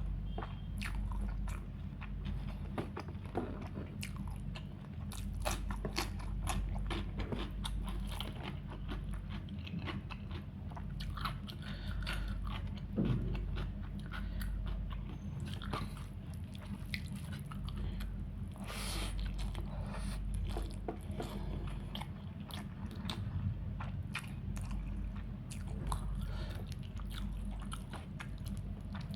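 Close-miked eating: a person chewing and biting food, with many small crunches and mouth clicks, over a steady low hum.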